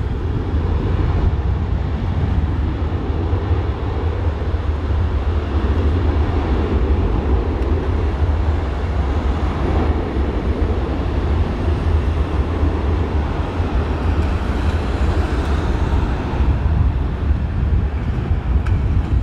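Airbus A330-223 airliner's jet engines running as it rolls on the runway at the start of its take-off: a loud, steady, deep rumble.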